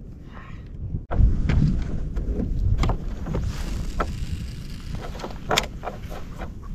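Wind rumbling on the microphone aboard a fishing kayak, with water noise along the hull and a few sharp clicks and knocks; the sound jumps louder about a second in.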